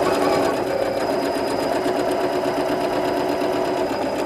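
Janome sewing machine running steadily at an even speed, sewing a long basting stitch to hold two layers of fabric together.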